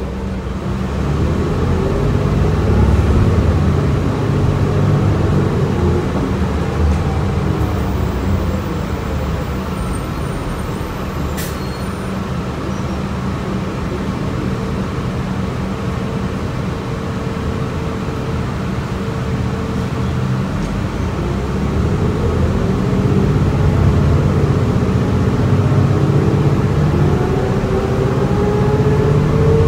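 Interior sound of a 2006 New Flyer C40LFR bus on the move: its Cummins Westport ISL-G natural-gas engine drones steadily under a driveline whine that rises and falls with speed, climbing again near the end as the bus picks up speed. A single sharp click about eleven seconds in.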